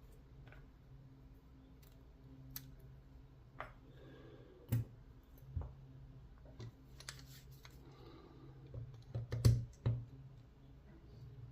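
Scattered small metallic clicks and taps from handling a brass padlock and its small parts and tools, with a louder knock about five seconds in and a cluster of louder knocks near the end.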